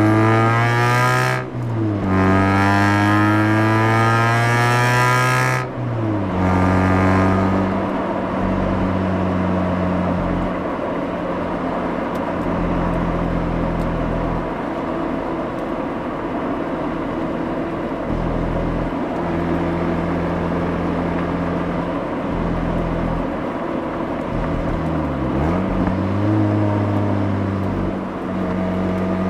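Mazda RX-8's rotary engine heard from the exhaust, accelerating hard with its pitch rising through the gears: two upshifts in the first six seconds, each a sudden drop in pitch. After that it settles into steadier, lower running, with a brief lift and pick-up again near the end.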